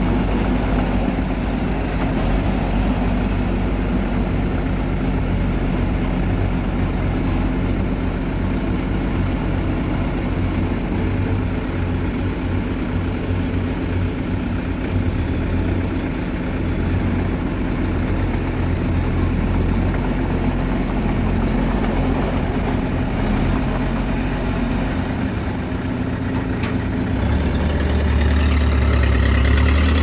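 Engines of a small crawler bulldozer and a loaded dump truck running steadily as the dozer works soil. Over the last few seconds a deeper, louder engine sound builds as the dump truck moves off.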